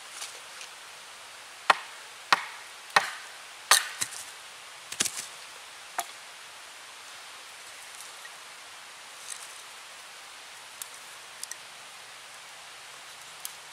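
Wooden baton striking the back of a hatchet driven into a short log to split it into staves: a series of sharp knocks, roughly one every half second to a second, over the first six seconds. After that there are a few faint clicks of the split pieces of wood knocking together as they are handled.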